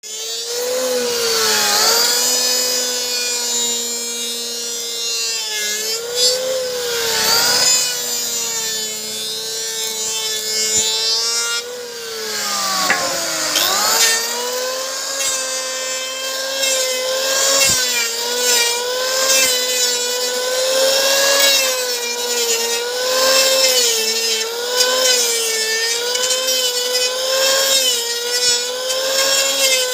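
Electric hand planer running and cutting wood: a steady motor whine whose pitch wavers up and down with the load, sagging sharply about twelve seconds in and climbing back.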